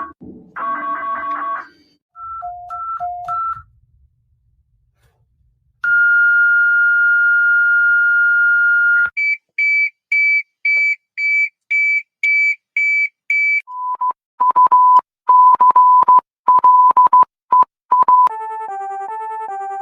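A string of synthesized emergency-alert tones. A repeating chord-like tone and a few two-note beeps are followed by a brief silence, then a long steady tone of about three seconds. Fast high beeps at about two a second come next, then lower, sharper beeps, and near the end an alternating two-note electronic warble.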